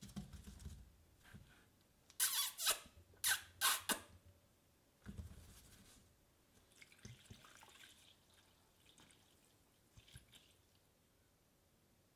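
Rubber-gloved hand rubbing and scraping across a wooden workbench, with a quick run of about five short, loud scrapes about two seconds in, then softer rubbing and a few light ticks.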